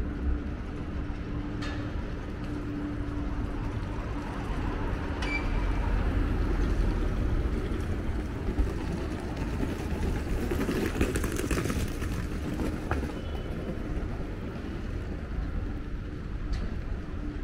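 City street traffic: a steady low rumble of engines and tyres with a faint constant hum, swelling as a vehicle passes close about ten to twelve seconds in.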